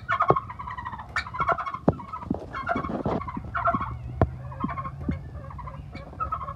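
Turkeys gobbling over and over in quick warbling bursts, with scattered sharp clicks.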